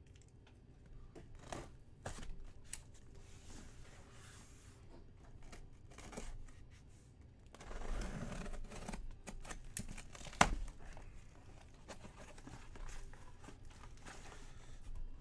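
Sealed cardboard case being cut and torn open: tape and cardboard scraping and tearing in irregular strokes, louder for a stretch about eight seconds in, with one sharp knock about ten seconds in.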